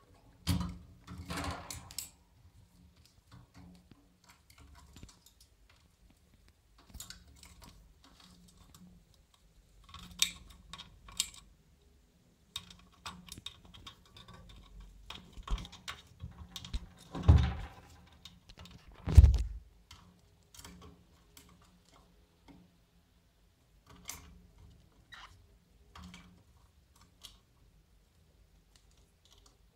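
Irregular clicks and light rattles of a white wire birdcage being handled at its door and feeders, with a cockatiel moving inside. There are a few louder knocks about half a second in and again around 17 and 19 seconds.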